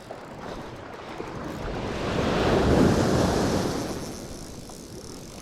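Surf on a beach: a wave rushes in, swelling to its loudest about halfway through and then fading.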